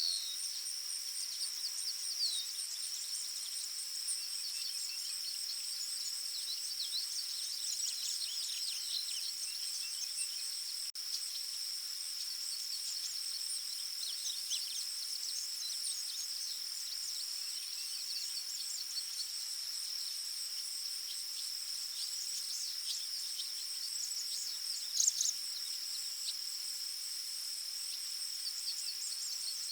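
Forest ambience: a steady, high insect trill like crickets, with many small bird chirps scattered over it and one louder bird note near the end.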